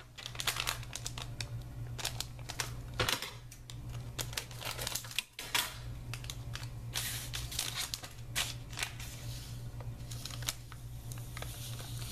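A plastic powder sachet crinkling in the hands as it is handled and opened, in a long run of irregular crackles. A steady low hum sits underneath.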